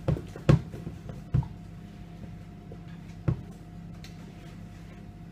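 Kitchen utensils knocking: four short, sharp knocks, three within the first second and a half and one more a little past three seconds, over a steady low hum.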